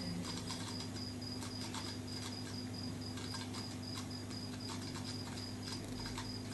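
Steady low hum of aquarium equipment, with a short high chirp repeating evenly about four to five times a second and scattered faint clicks.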